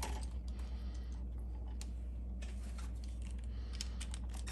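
Faint, scattered light clicks and taps of wires being worked into the terminals of a GFCI outlet, over a steady low hum.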